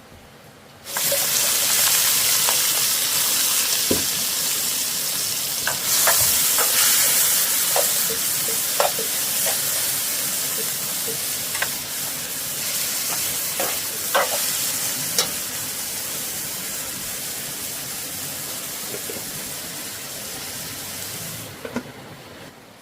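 Food frying in hot oil: a loud sizzle that starts abruptly about a second in, with scattered pops and clicks, easing off gradually and dropping away near the end.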